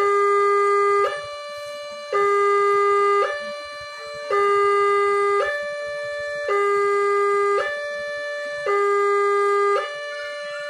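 Railway level-crossing warning siren sounding a two-tone electronic alarm, a loud lower note and a quieter higher note alternating about every second in a steady repeating cycle.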